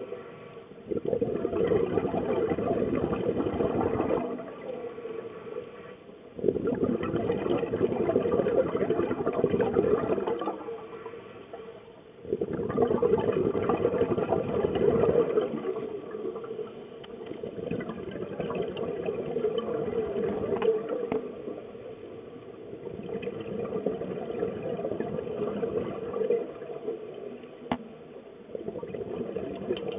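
Scuba diver's regulator exhaust bubbles heard underwater, coming in bursts of a few seconds with short pauses between them, in step with the diver's breathing. The first three bursts are the loudest and the later ones are softer.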